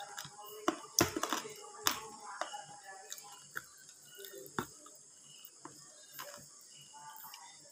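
Eating by hand: chewing and lip-smacking with soft squishing of curry rice under the fingers, and a few sharp clicks about one, two and four and a half seconds in.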